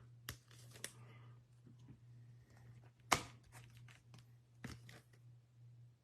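Hands handling baseball trading cards and pack wrappers: scattered short taps and soft rustles, with one louder tap about three seconds in, over a low steady hum.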